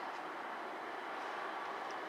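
Class 66 diesel-electric locomotive hauling a freight train of open wagons towards the listener, heard as a steady even running noise of engine and wheels on rail.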